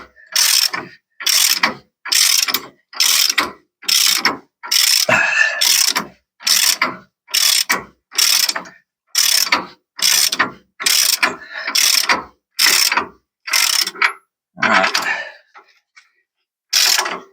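Hand ratchet wrench cranking down the U-bolt nuts on a van's rear leaf-spring axle. Each stroke gives a short burst of ratcheting clicks, about one stroke a second, with a brief pause near the end.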